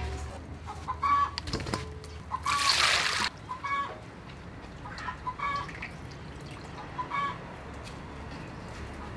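Chickens clucking in short calls repeated every second or two, with a brief loud splash of water about two and a half seconds in.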